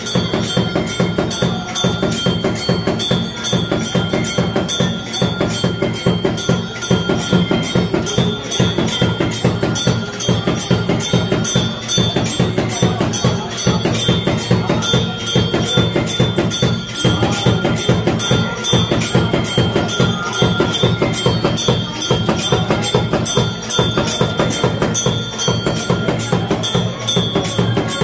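Music with a fast, even percussion beat and steady high tones held underneath.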